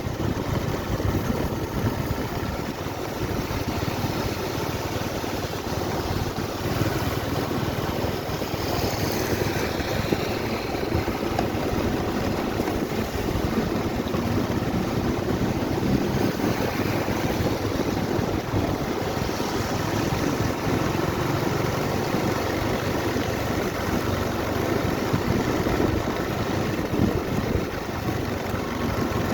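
Riding on a motorcycle: steady wind buffeting the microphone over the engine and road noise.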